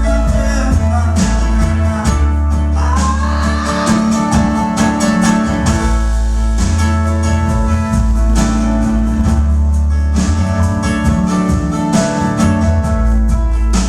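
A band playing live: guitar over a deep bass line, with singing.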